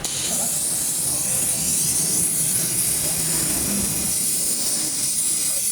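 Gas welding torch flame hissing steadily; the hiss cuts in suddenly at the start.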